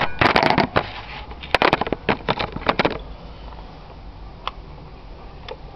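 Handling noise: a quick run of sharp clicks and knocks over the first three seconds as the camera is set down on a concrete path, then a few lighter clicks from hands on a Stihl petrol hedge trimmer.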